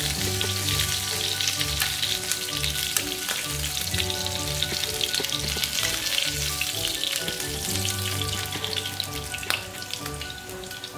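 Chicken breast pieces frying in a pan of hot olive oil and butter: a steady sizzle peppered with small crackling pops. Quiet background music with a repeating bass line plays underneath.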